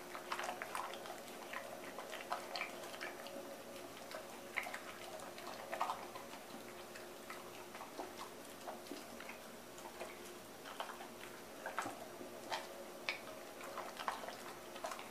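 Dog eating soft cooked potato and gizzards from a stainless-steel bowl: irregular wet clicks and smacks of chewing and of the muzzle against the metal bowl, a few a second, over a faint steady hum.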